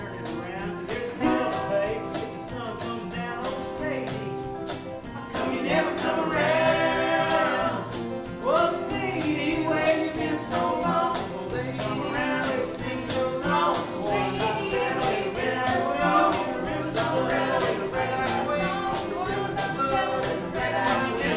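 Several acoustic guitars playing a folk-country song together over a steady percussive beat; voices singing come in about five seconds in.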